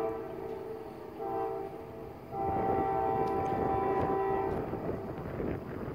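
Distant first-generation Nathan K5LA five-chime air horn on CSX locomotive 3000 sounding. A blast ends right at the start, a short blast comes about a second in, and a long blast starts just over two seconds in and lasts a little over two seconds.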